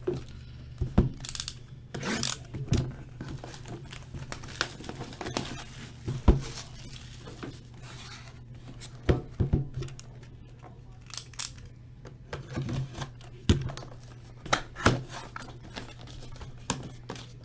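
Hands handling trading cards and their packaging: irregular crinkling and tearing of wrappers and plastic, with scattered sharp clicks and taps, over a steady low hum.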